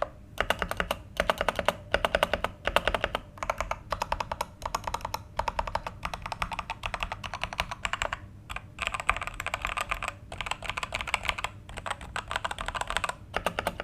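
Ajazz AK871 mechanical keyboard with red linear switches being typed on quickly, keystrokes clacking in fast runs with short pauses between them. A faint steady low hum sits underneath.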